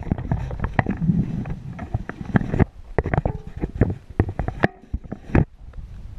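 Handling noise from a body-worn camera: clothing and fabric rubbing and knocking against the microphone, heard as irregular clicks and knocks over a low rumble, starting suddenly.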